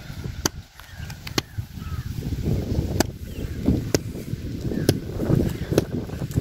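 Coconut husks being torn apart by hand: sharp cracks of the fibrous husk snapping, roughly once a second, over the rustle of husk fibres. Wind buffets the microphone with a low rumble that grows after the first couple of seconds.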